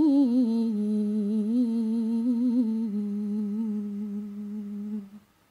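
A woman's voice in Quranic tilawah recitation, drawing out the final syllable of the basmala's "ar-Rahim" as one long melismatic note. The note steps down in pitch with small ornamental turns, then holds steady and fades out about five seconds in.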